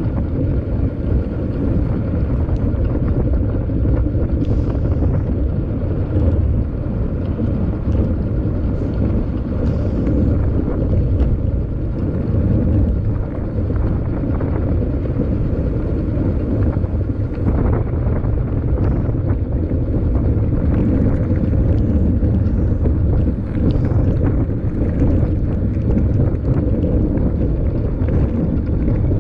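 Steady low wind rumble buffeting the microphone of a camera mounted on a mountain bike being ridden, with faint scattered clicks and rattles.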